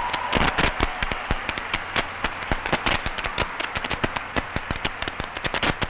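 Audience applauding, with individual hand claps standing out.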